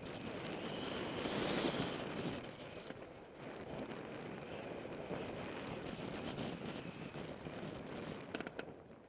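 Wind rushing over the microphone of a camera on a mountain bike descending fast, mixed with tyres rolling over a gravel trail; louder about a second and a half in. A few sharp clicks sound near the end.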